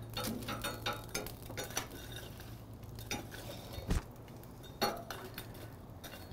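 Hot red oak coals being raked and pushed across a grill's firebed with a long-handled flat metal coal scraper: coals clinking and scraping. The clinks come thick in the first two seconds, then a dull thump about four seconds in and another clatter near five.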